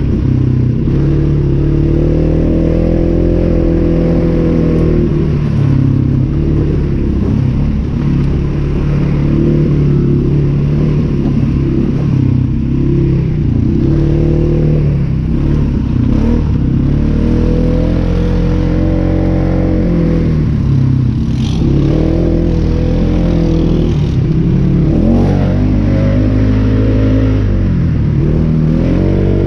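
Polaris 570's single-cylinder engine running under way, its revs rising and falling again and again as the throttle is worked.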